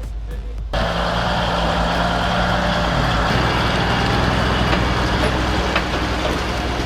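Heavy truck's diesel engine running under load: a steady low drone with a loud rushing noise over it.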